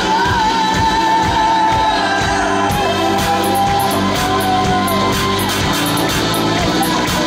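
Live rock band playing loudly, with a singer holding long notes that slide in pitch over bass, drums and cymbals.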